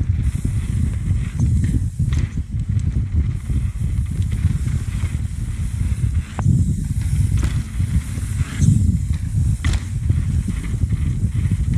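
Mountain bike riding fast down a dirt trail: heavy wind rumble on the microphone over the hiss of tyres on dirt, with a few sharp knocks and rattles from the bike hitting bumps.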